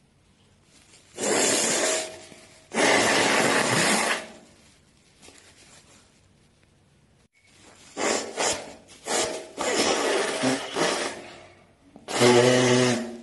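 A person blowing their nose into a tissue. There are two long blows, the first about a second in and the second about three seconds in, then a run of short blows from about eight to eleven seconds, and a last pitched blow near the end.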